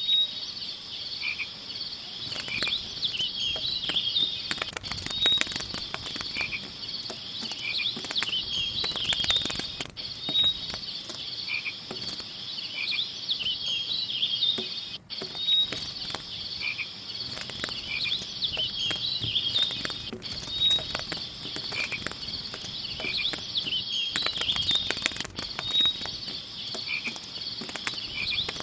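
Chorus of frogs croaking over steady high insect trilling, the same pattern recurring about every five seconds, with frequent crackly clicks scattered through it.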